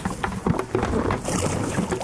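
Wind on the microphone and water lapping against a small boat's hull, with irregular small knocks and clatter from handling gear on board.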